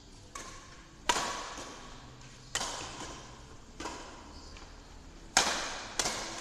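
Badminton rackets striking a shuttlecock in a doubles rally: six sharp smacks, mostly one to one and a half seconds apart, with the last two coming quickly. Each hit rings on in the hall's echo.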